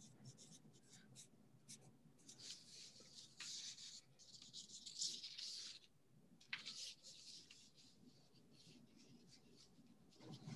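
Near silence: faint room tone with quiet scratchy rustling and a few soft clicks, strongest between about two and six seconds in.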